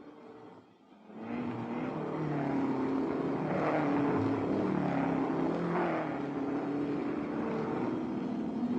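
Racing sports-car engines at speed on a circuit, several cars going by in turn, each engine note rising and falling as it passes. The sound dips almost to nothing about a second in, then comes back.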